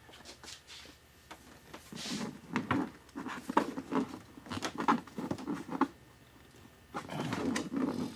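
Irregular clicks, knocks and light rattles of a car's windshield wiper arm being worked at by hand to pull it off its shaft, with a short scraping, rustling stretch near the end.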